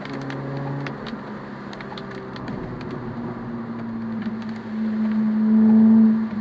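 Car engine heard from inside the cabin. Its note drops about a second in, then rises steadily and grows louder as the car accelerates, and cuts off sharply near the end like a gear change. Scattered light ticks sound over it.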